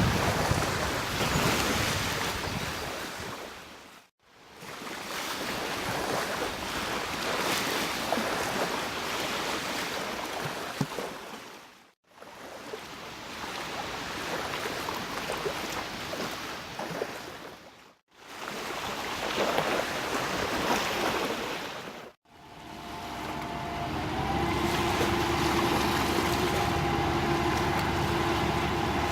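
Wind buffeting the microphone over rushing water, in several short stretches cut off by brief silences. About 23 seconds in, a steady engine drone with a fixed pitch comes in under the wind.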